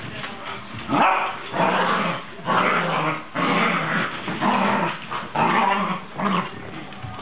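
Two dogs, a Petit Basset Griffon Vendéen and an Irish Terrier, growling in rough play: a string of about seven short growls, each under a second long.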